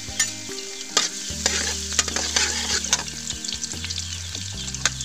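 Minced garlic sizzling in hot oil in a metal wok, stirred with a metal spatula that scrapes and clicks against the pan many times; the garlic is being fried until fragrant.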